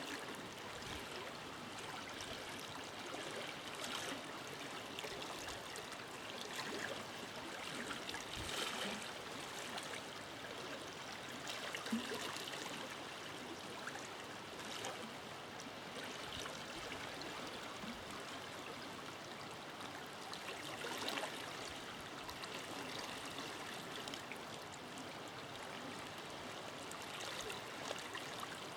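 A forest river flowing over stones, a steady rush of water with small irregular splashes and gurgles.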